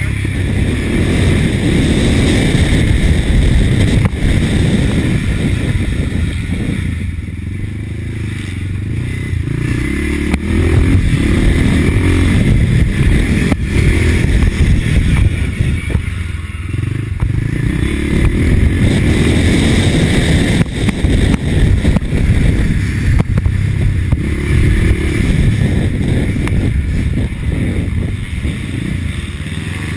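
1983 Husqvarna TC 500's two-stroke single-cylinder engine running hard on a motocross track, its revs rising and falling as the throttle is worked. It eases off briefly about seven and sixteen seconds in.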